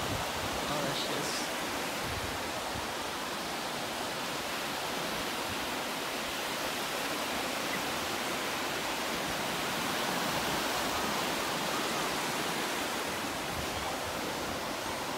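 Ocean surf: small waves breaking and washing in the shallows, a steady rushing noise.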